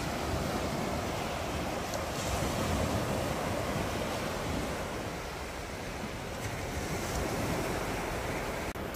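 Small waves breaking and washing up onto a flat sandy beach: a steady surf wash that swells a little two to three seconds in.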